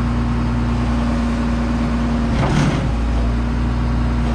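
Case 2144 combine's diesel engine running steadily as the feeder house is lined up to pick up the header. About halfway through, a brief rushing noise comes over the engine, and one of its steady hum tones drops out.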